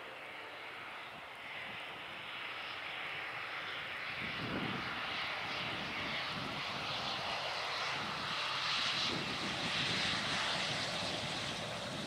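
Embraer 190 airliner's twin General Electric CF34-10E turbofan engines at touchdown and on the landing rollout: a steady rushing jet noise that grows louder as the aircraft comes along the runway, with a deeper rumble joining about four seconds in and the noise loudest near the end.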